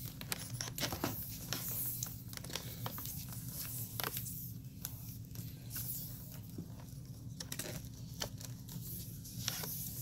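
Handling noise: scattered light clicks, taps and rustles as a small plastic upright vacuum and its wound cord are moved about, over a faint steady low hum.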